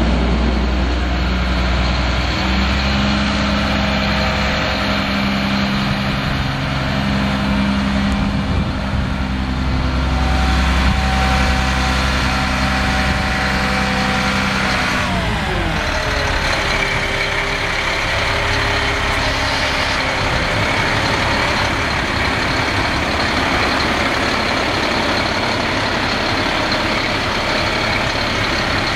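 Diesel engine of a Sterling LT8500 truck idling steadily. About halfway through its speed drops, the pitch falling, and it settles at a lower idle.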